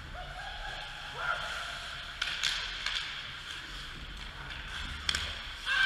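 Ice hockey play in an indoor rink: several sharp clacks of sticks and puck over a steady rink hum, with players calling out faintly.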